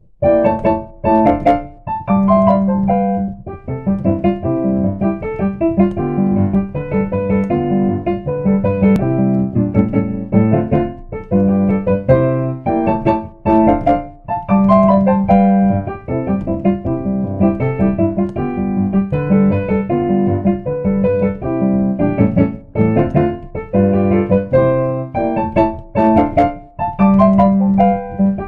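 Piano playing the tune of a children's song, chords over recurring held bass notes, with no singing.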